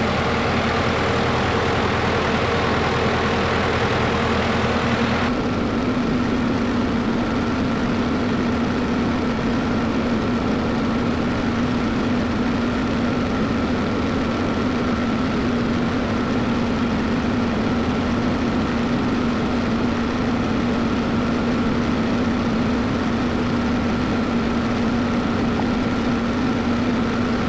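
Cat 312 excavator's diesel engine idling steadily. Its sound changes abruptly about five seconds in, then runs on evenly with a steady hum.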